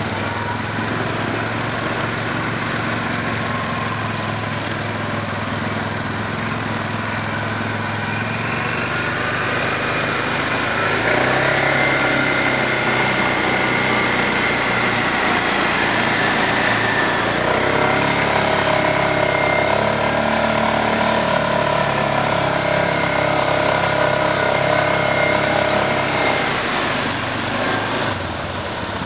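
ATV (quad bike) engine running under load as it drives through a river, with rushing, splashing water around it. The engine revs up about a third of the way in, holds higher, and eases off near the end.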